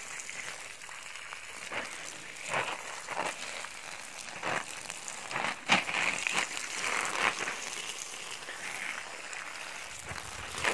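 Stream of water from a hose pipe splashing onto strawberry leaves and plastic mulch film: a steady hiss with irregular louder splashes.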